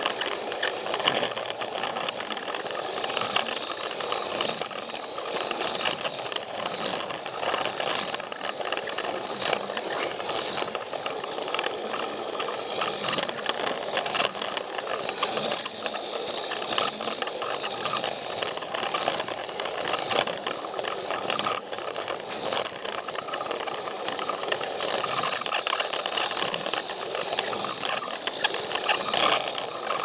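Plarail battery-powered toy train running on plastic track: its small motor and gearbox whir steadily under a constant fine rattle and clatter of wheels and train body on the track.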